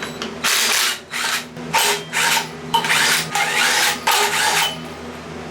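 Power tool fitted with an Allen bit, run in about six short bursts with brief pauses, working at a fastener on the Cummins 4BT's fan pulley bracket.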